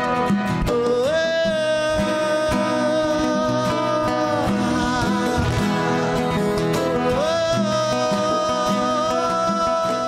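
Live acoustic music: a man sings two long held notes, the first about a second in and the second about seven seconds in. Under him play a nylon-string classical guitar, a steel-string acoustic guitar and hand-played congas.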